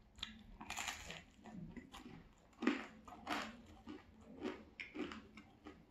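Close-miked chewing and biting of crispy thin-crust pizza: irregular crunches and wet mouth sounds, loudest about two and a half seconds in.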